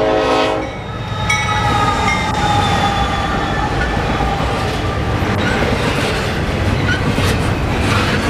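A Norfolk Southern diesel locomotive's air horn sounding for the road crossing. One blast cuts off within the first second, and a second blast drops in pitch as the lead locomotive passes close by. Then the locomotives and double-stack container cars of the intermodal train rumble steadily past.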